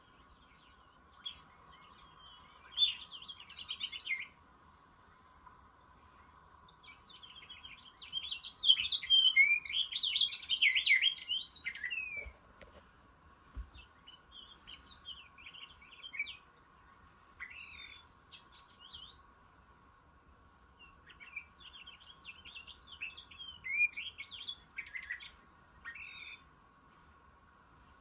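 Purple finch singing: about four long bursts of rapid, rich warbling, each lasting a few seconds, with short pauses between them.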